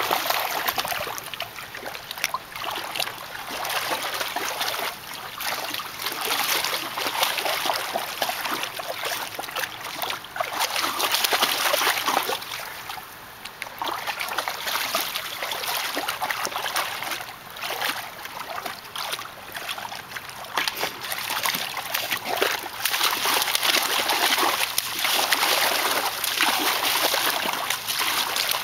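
A dog wading and splashing in a plastic kiddie pool, churning and sloshing the water. It goes on almost without pause and eases briefly about halfway through.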